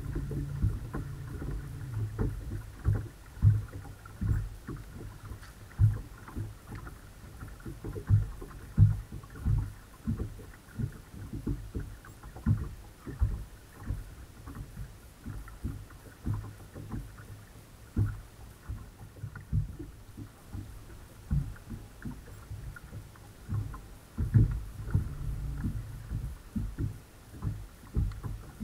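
Water slapping and knocking against a bass boat's hull, a run of irregular low thumps, with the low hum of the bow-mounted electric trolling motor coming and going.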